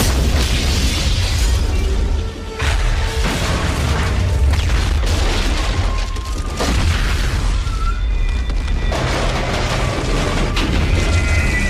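Film sound effects of a derailing freight train smashing through buildings: continuous deep rumbling and booms of the crash, with film-score music underneath.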